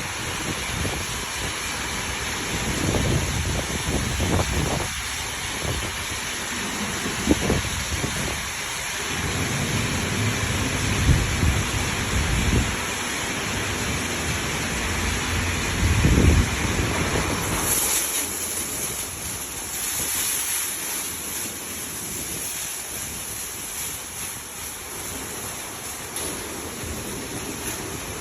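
Automatic car wash running over a car: a steady rush of water pelting the car's body, with low rumbling thumps through the first half and a brighter hiss coming in after about 17 seconds.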